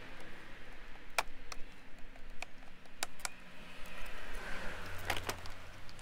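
Plastic push clips on a Mini F56's front grill surround being prised out of the plastic bumper with a small tool: a series of sharp, irregular plastic clicks, with a cluster of them about five seconds in.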